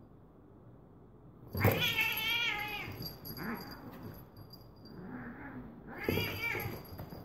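A cat yowling in a fight with another cat: a loud, wavering yowl about a second and a half in, softer short cries after it, and a second loud yowl about six seconds in.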